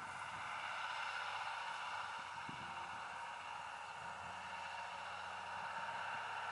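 Faint, distant engine of a loaded truck working slowly across a hillside, rising and falling in pitch, under a steady hiss.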